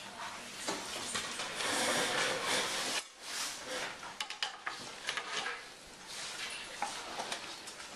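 Classroom handling noise: rustling and rubbing with small knocks and clatters of objects on wooden desks. Cuts off abruptly about three seconds in, then resumes.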